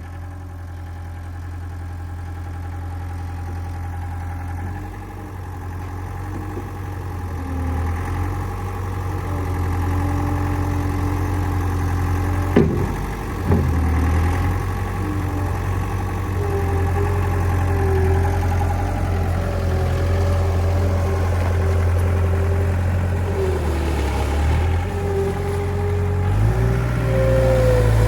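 Skid steer loader's engine running steadily and growing gradually louder, with two sharp knocks about halfway through and a whine that comes and goes in the second half.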